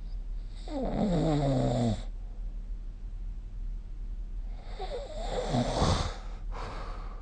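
Snoring: two loud snores about four seconds apart, the first falling in pitch, then a brief fainter sound near the end, over a steady low hum.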